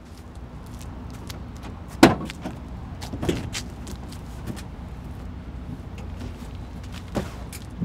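Pickup truck tailgate dropping open and stopping on its cables with a loud clunk about two seconds in, then a second knock and a few lighter clicks and thuds, over a steady low rumble.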